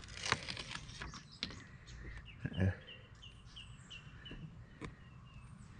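Handling noise from backing paper being peeled off a sheet of EVA foam deck padding: crinkles and light clicks, with a dull knock about halfway through. Over the second half a bird chirps a quick series of short, high notes, about three a second.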